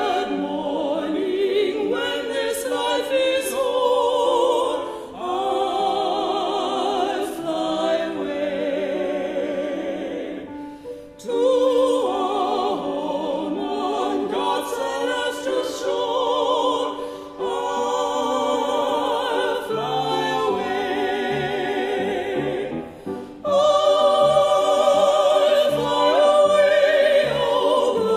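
Three soloists, two women and a man, singing in harmony with a church choir, the voices full of vibrato, in phrases of about six seconds with short breaks between. The singing grows louder about 23 seconds in.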